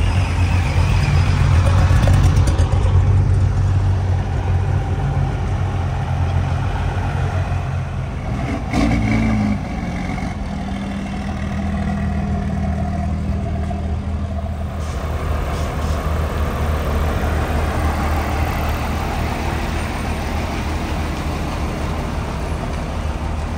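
Pickup truck engines running at low speed as trucks roll past, strongest in the first few seconds. About nine seconds in there is a brief louder burst from an engine, then a steadier engine note.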